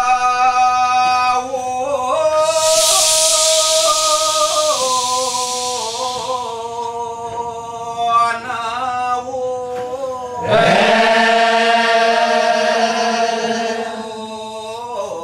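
Kecak chorus of men's voices chanting together, holding long tones that step up and down in pitch. A loud hissing rush joins in from about two to six seconds in, and a fresh held tone starts sharply about ten and a half seconds in.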